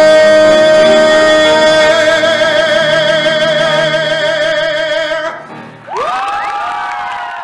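Male singer holding the long final high note of a musical-theatre song over the accompaniment, the note starting to waver in vibrato about two seconds in and cutting off a little after five seconds. Audience whoops and cheers break out about a second later.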